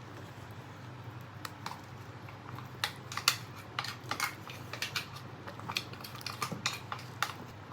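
Light irregular clicks and taps of kitchen utensils against cookware, starting about a second and a half in and coming several times a second. A low steady hum runs underneath.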